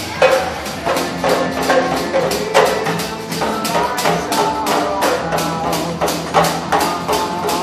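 Dance music playing, with a fast, steady percussive beat and a melody line over it.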